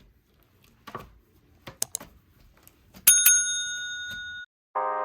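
A small bell dinging: two quick strikes about three seconds in, ringing on with a bright tone for about a second and a half, then stopping. A few faint clicks come before it, and music starts near the end.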